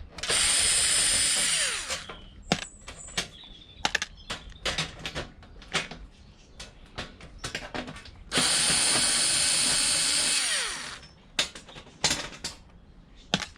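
Power drill-driver run twice for about two seconds each, backing screws out of a plastic heater casing, its whine falling as it winds down each time. Short clicks and knocks of handled plastic parts and screws between the runs.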